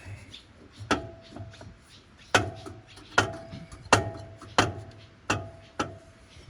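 Seven sharp metal-on-metal knocks, a little under a second apart, each with a brief ring: a hand tool striking metal on the tractor while the alternator is being worked loose.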